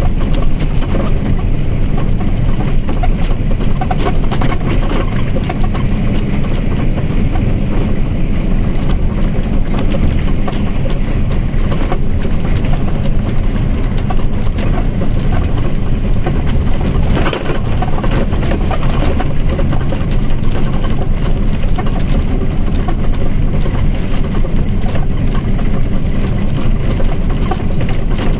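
Mercedes-Benz OF-1722M bus engine running steadily, a dense low rumble with frequent small rattling clicks over it.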